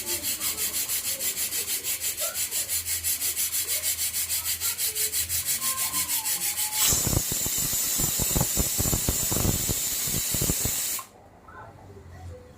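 An evenly pulsing hiss at about seven pulses a second, then water at a rolling boil in a pot, bubbling hard under a steady hiss for about four seconds before it cuts off.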